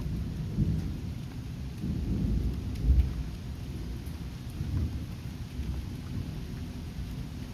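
Thunder rumbling, swelling and fading, with a sharper jolt about three seconds in, over steady rain.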